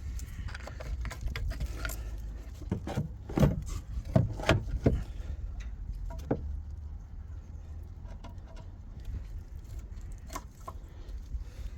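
Scattered knocks and clicks of hand tools and metal parts being handled, loudest in a cluster of sharp knocks about three to five seconds in, over a steady low hum.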